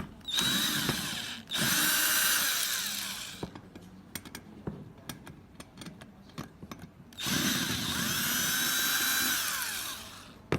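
Cordless electric screwdriver running in three bursts, two short ones close together and a longer one about seven seconds in, backing screws out of a smart lock's panel. Small clicks of screws and parts being handled come between.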